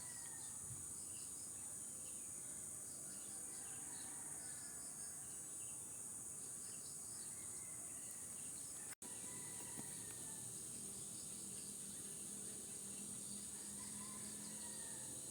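Steady high-pitched insect drone with faint scattered chirps over it; the sound cuts out for an instant about nine seconds in.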